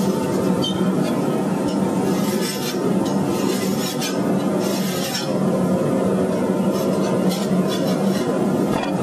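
Steady workshop machine hum, with irregular light scraping and clinking of a steel bandsaw blade being handled and slid through gloved hands against a block.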